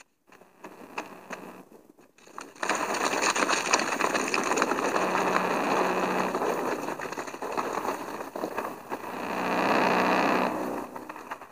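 Soundtrack of a CGI horror short playing through a phone: a loud, dense rushing noise with a low hum that comes in about two and a half seconds in and eases off near the end.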